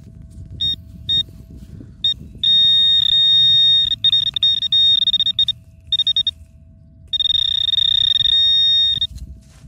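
A metal-detecting pinpointer's high-pitched buzzer sounds as the probe searches the dug hole for a buried metal target. It starts with short beeps, then gives quick pulsing runs and two long steady tones. Under it a faint steady hum and rustling of soil go on.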